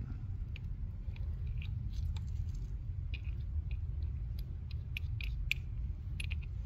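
Small paper-and-foil dielectric grease packet crinkling as gloved hands tear it open and squeeze it, a scatter of light crackles over a steady low hum.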